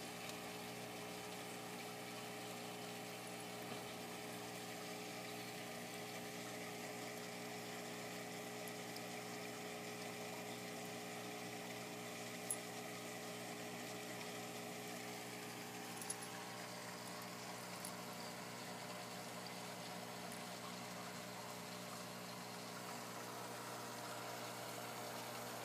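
Aquarium air pump humming steadily, with a few small clicks about halfway through.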